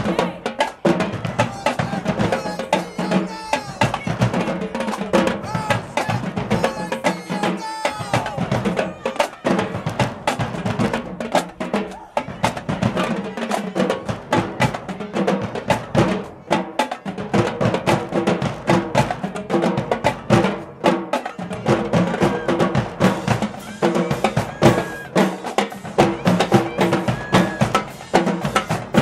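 HBCU marching band drumline playing a steady, driving cadence on bass drums and snare drums, with voices over the drumming.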